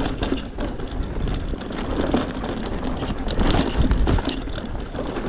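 Mondraker Superfoxy enduro mountain bike descending a dirt trail, heard from an action camera on the rider. Wind rumbles on the microphone, the tyres run on dirt, and the chain and frame rattle and knock over bumps.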